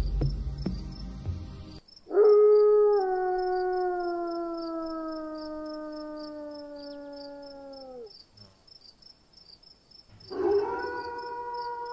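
A long canine howl that falls slowly in pitch over about six seconds. A second, steadier howl begins near the end. Crickets chirp steadily throughout, and a low rumble cuts off about two seconds in.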